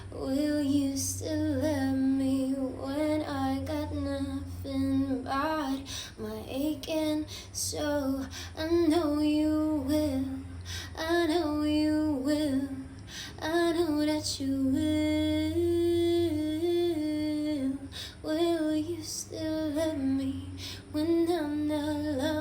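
A woman singing solo: a slow melody in long held notes and phrases, without clear words.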